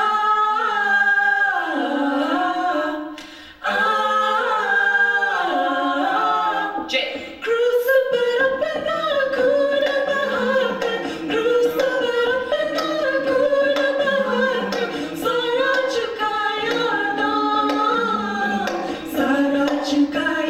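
Mixed a cappella vocal group of men and women singing in harmony without instruments, with a brief break about three and a half seconds in and fuller, lower harmony from about seven seconds on.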